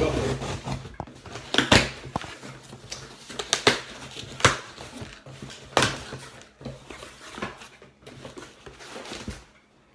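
Packing tape being torn off a cardboard parcel box in a series of short, irregular rips, then the cardboard flaps being pulled open near the end.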